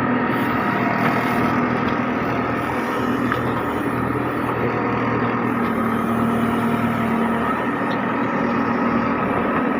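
JCB 3DX backhoe loader's diesel engine running steadily as it works.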